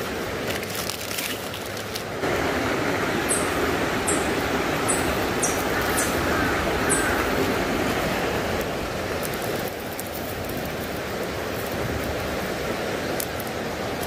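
Mountain creek water running steadily, getting louder about two seconds in. Clicks and rustling of handling come in the first two seconds, and a few short high chirps fall between about three and seven seconds in.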